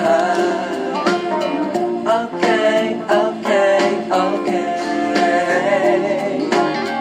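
A song with singing playing over a speaker fed by an LG home theater's wireless rear-speaker receiver. It is a sound test showing that the newly re-paired receiver now passes audio.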